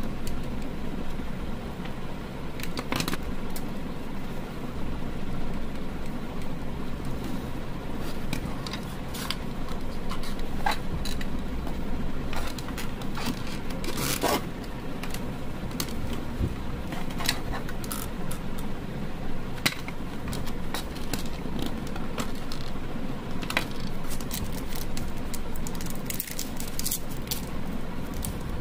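Scattered clicks, scrapes and light knocks of a screwdriver and plastic socket-box parts being handled and fitted together, with a longer scrape about halfway and a quicker run of clicks near the end, over a steady low background rumble.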